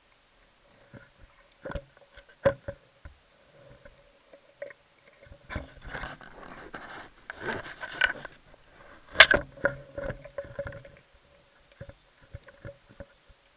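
Underwater sound picked up through a camera housing: scattered sharp clicks and knocks, a stretch of crackling rustle in the middle, and the loudest sharp click about nine seconds in, over a faint steady hum.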